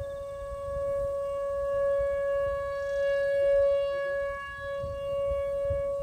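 Whelen 4004 outdoor warning siren sounding its steady alert tone: one unbroken note that holds its pitch and swells and fades in loudness.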